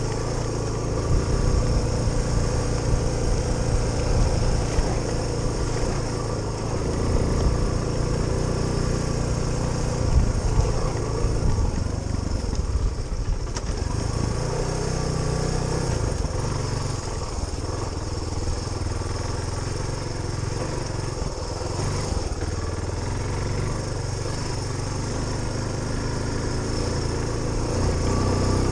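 Suzuki DR350SE's single-cylinder four-stroke engine running under way off road, its revs rising and falling.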